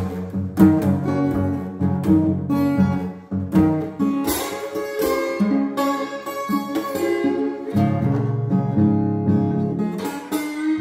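Steel-string acoustic guitar in open D tuning, played with a glass slide and fingerpicked: a slide blues, with plucked bass notes under slid treble notes.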